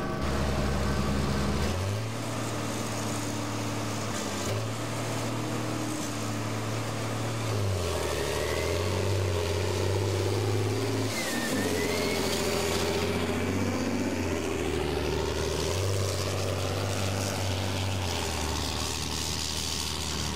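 John Deere farm tractor's diesel engine working hard under load, pulling a weight-transfer sled in a tractor pull. The note holds steady, then dips and climbs back about halfway through.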